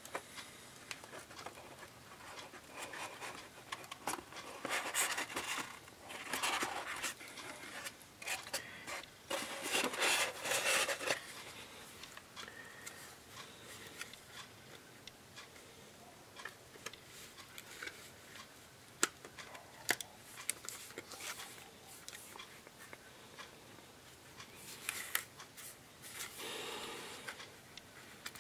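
Hands handling an opened tablet's plastic frame and circuit board: intermittent rubbing and scraping, with a few light clicks in the second half.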